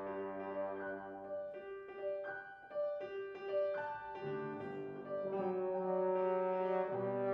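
French horn and piano playing a classical piece together: held horn notes over piano, a passage of shorter separate notes in the middle, then low sustained horn notes entering about four seconds in.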